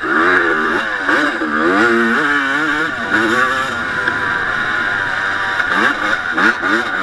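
1989 Honda CR250's single-cylinder two-stroke engine under hard throttle while racing, its pitch climbing and dropping back again and again through gear changes. A quick run of steep rises comes near the end.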